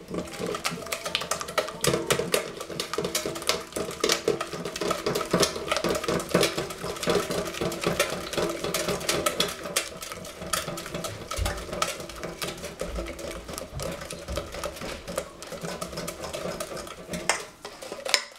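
Wire whisk beating egg yolk, sugar and mascarpone by hand in a stainless steel saucepan: a fast, steady clatter of the wires against the pan, working the mascarpone into the yolk mixture.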